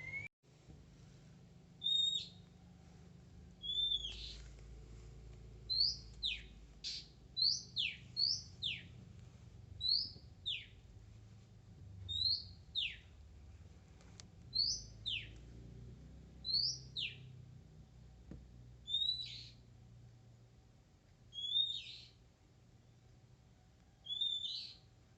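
Oriental magpie-robin (kacer) singing: a series of clear whistled notes about a second apart, some sweeping steeply down in pitch and others short two-part whistles, with brief pauses between runs.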